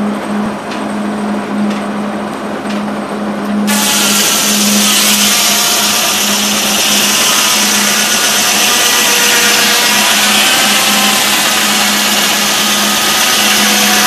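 Steam-powered sawmill's large circular saw, dating from the 1890s, spinning with a steady hum and light regular clicking, then entering a log about four seconds in. It cuts with a loud, steady rasp and a faint whine.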